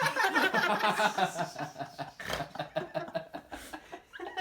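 A man laughing in rapid helpless fits from being tickled. The laughter is densest at first and breaks up into scattered bursts in the second half.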